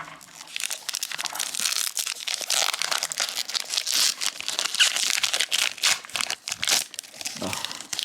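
A foil Pokémon card booster pack wrapper crinkling as it is handled and torn open: a dense run of crackles, loudest in the middle.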